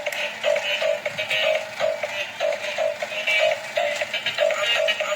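Electronic music with a synthetic, voice-like melody over a regular pulsing beat, about three pulses a second.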